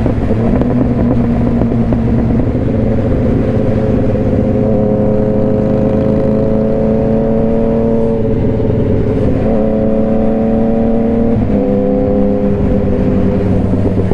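Motorcycle engine running at road speed under wind rumble, with the engine note climbing slowly and then changing pitch a few times in the second half, as with throttle changes and gear shifts.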